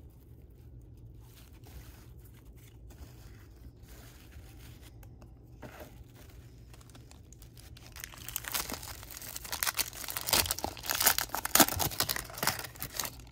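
A 1992 Upper Deck football card pack being torn open, its wrapper crackling and crinkling loudly over the last five seconds or so. Before that there are only faint rustles of cards being handled.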